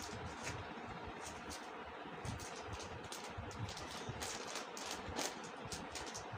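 Typing on a smartphone's on-screen keyboard: a quick, irregular series of faint taps and clicks over steady room noise.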